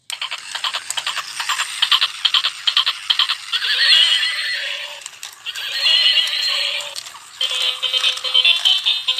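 Battery-operated walking toy horse playing its built-in electronic sounds: rapid clip-clop hoofbeats, two recorded whinnies, then a tinny electronic tune from about seven seconds in.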